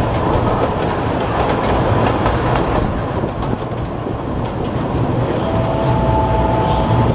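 Running noise of the Kurobe Gorge Railway's narrow-gauge trolley train heard from an open-sided passenger car: a steady, loud rumble of wheels on rail with light clickety-clack. A faint steady whine comes in near the end.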